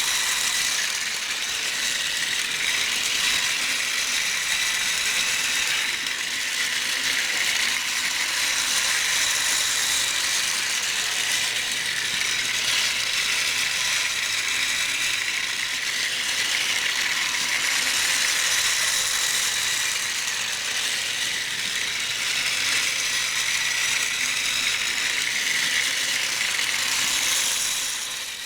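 Battery-powered toy train motor and gears running with a steady rattling whir. The sound fades out near the end.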